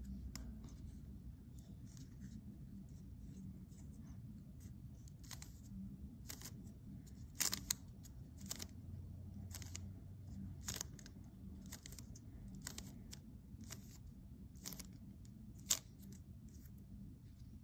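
Weilong v9 Maglev Ball Core 3x3 speedcube being turned by hand, its layers clicking in a quick, irregular string of turns. Two louder clacks come about seven and a half seconds in and near the end.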